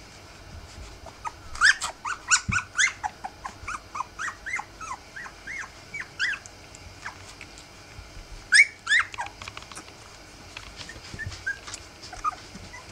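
Three-week-old rough collie puppies squeaking and whimpering as they jostle under the mother to nurse, in quick runs of short high cries. The loudest runs come about two seconds in and again near nine seconds.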